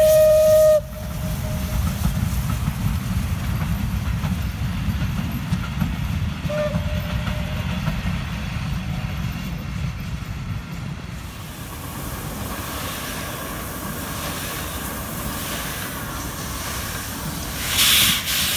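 Steam whistle of the class 433.0 locomotive 433.002 holding one steady note that cuts off about a second in, with a short second toot about six seconds in, over the low rumble of the passing train. Near the end comes a brief loud rushing noise.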